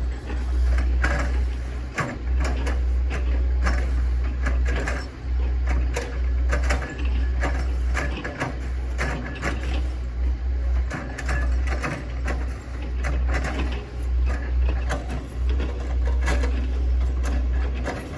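Hitachi ZX110 excavator running with a steady low rumble, overlaid by frequent, irregular sharp cracks and knocks.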